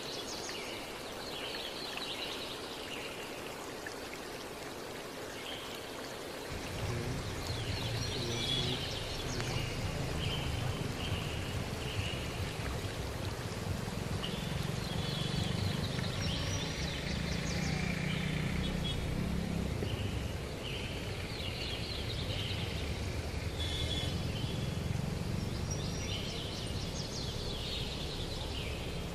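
Outdoor ambience of birds singing in short repeated phrases every few seconds over a steady hiss, with a low rumble coming in about six seconds in and staying.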